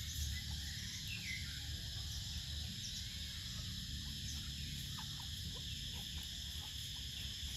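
Steady insect chorus droning on unchanged, with a low rumble underneath and a few faint short chirps.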